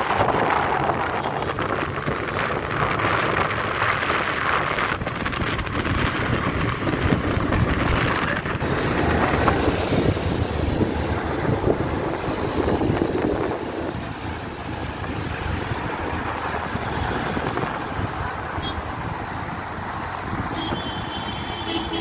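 Wind rushing over the microphone mixed with road traffic noise, easing off a little about two-thirds of the way through.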